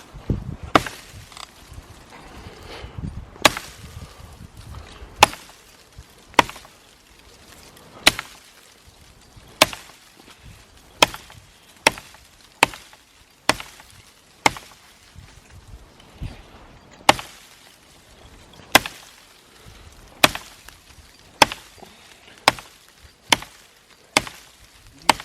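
Axe chopping into wood: about twenty sharp blows, roughly one a second, slightly irregular, each a single crisp strike.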